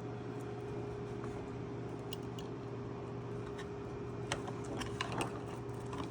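Small sharp plastic clicks and handling noise as 5-wire cable connectors are pushed onto a circuit board's pin headers, a few scattered about two seconds in and a cluster about four to five seconds in, over a steady low electrical hum.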